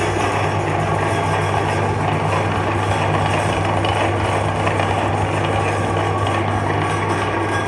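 Electric meat grinder running with a steady low motor hum as its auger grinds ice cream bars with their wooden sticks.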